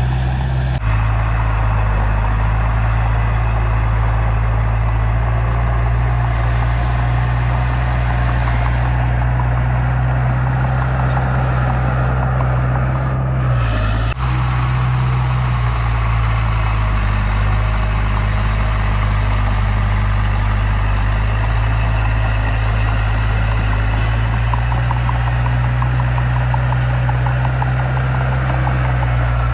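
Heavy earthmoving machine's diesel engine running steadily with a deep hum, broken off abruptly and resuming about a second in and again near the middle.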